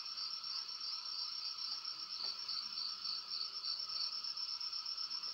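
Crickets chirping steadily in a continuous high, pulsing trill as night-time ambience.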